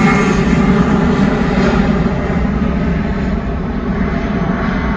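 Departing twin-engine jet airliner's engines at takeoff thrust: a loud, deep rumble whose high end and loudness slowly fade as the aircraft moves away.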